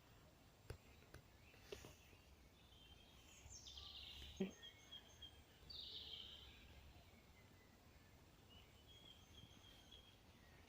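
Faint outdoor birdsong: small birds giving runs of short, high repeated chirps and a few down-slurred calls, with a couple of light clicks.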